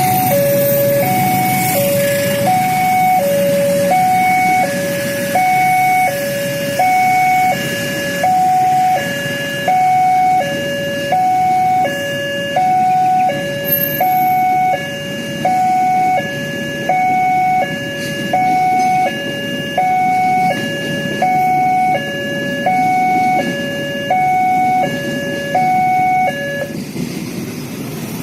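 Railway level-crossing warning siren sounding a steady two-tone hi-lo pattern, about one cycle a second, over a low steady rumble; it cuts off near the end. The siren warns that a train is approaching and the crossing is closing.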